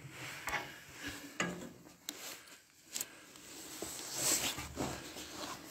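Camera handling noise: a few faint clicks and knocks with patches of rustling.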